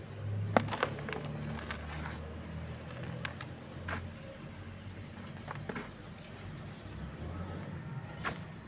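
Dry lumps of red dirt crumbling and crunching in the hands, with irregular sharp crunches and the rustle of loose dirt falling. The sharpest crunch comes about half a second in.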